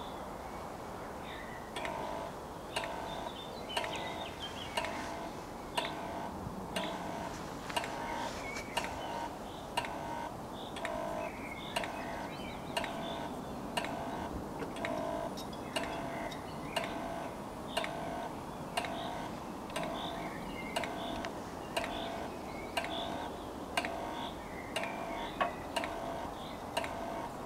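Level crossing warning bells striking at a steady rate, about three strokes every two seconds, each with a short ringing tone, starting about two seconds in. The crossing signal is warning that a train is approaching as the barriers lower.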